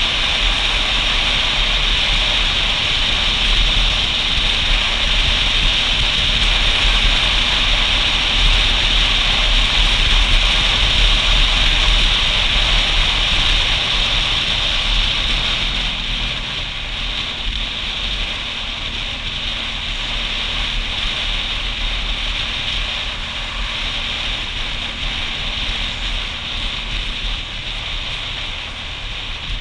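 Steady wind and road noise from a motorcycle riding along a wet road, with tyre hiss off the wet tarmac and the engine faintly underneath. The noise drops a little about halfway through.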